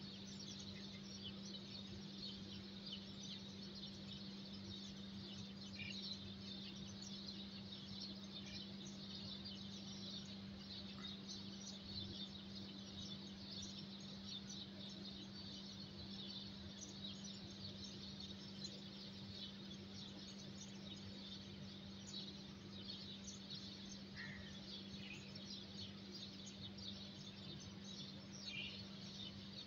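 Faint, continuous chirping from many small birds, with a few short, separate calls standing out, over a steady low hum.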